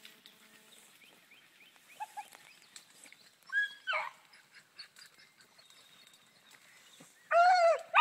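Hunting dogs baying while running a rabbit's trail. A short faint call comes about two seconds in and a falling bay near four seconds, then a loud, wavering, drawn-out bay begins near the end.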